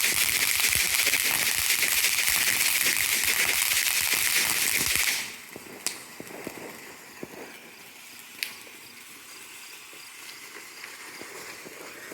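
A firework burning with a loud steady hiss and crackle that cuts off suddenly about five seconds in, followed by two faint sharp pops.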